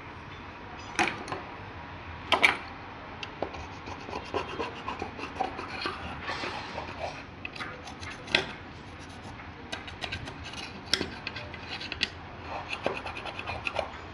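Hand tools scraping, rubbing and clicking against washing-machine parts during gearbox and water-seal repair work, irregular throughout with a few sharper knocks scattered through.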